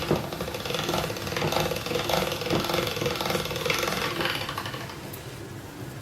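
Hand-cranked pasta maker being turned, its rollers and gears clattering steadily as dough is fed through on the thickest setting, number 1. The clatter dies down near the end.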